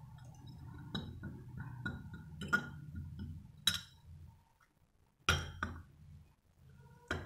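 Metal spoon and glass dishes clinking: about five sharp, separate clinks with a short ring as the spoon and a glass tumbler are set against glass bowls.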